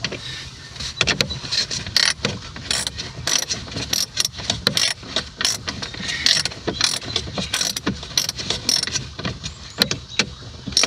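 Rapid, irregular mechanical clicking and clattering from hands-on work at the truck's dash.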